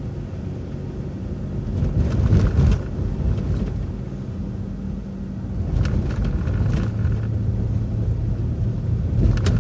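City transit bus driving, heard from on board: a steady engine and road rumble. The engine's hum drops in pitch about seven seconds in, with a few knocks or rattles about two and six seconds in.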